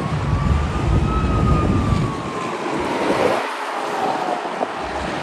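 Heavy diesel trucks passing on a highway, engine rumble and tyre noise loudest in the first two seconds. A faint siren wails underneath, its pitch rising and then falling slowly.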